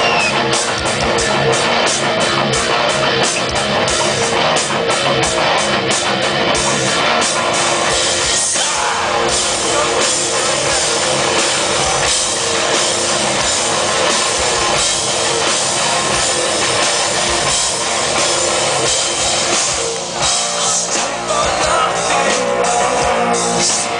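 Live rock band playing loudly through a stage PA: electric guitar, bass guitar and a drum kit keeping a steady beat.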